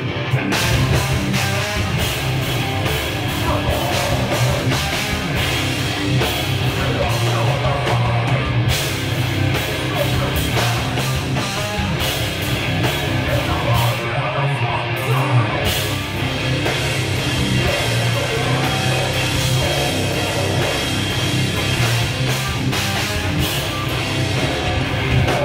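A live heavy rock band playing loud and without a break: distorted electric guitar, bass guitar and a full drum kit.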